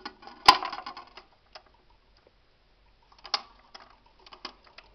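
Clicks and taps of a Magnavox Micromatic record changer being handled while a 78 record is set up on it: one sharp click about half a second in with a brief clatter after it, then a few lighter clicks and taps near the end.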